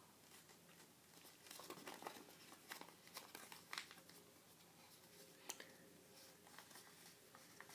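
Faint crinkling and rustling of a paper sheet being folded and creased by hand, with scattered soft crackles, the sharpest about five and a half seconds in.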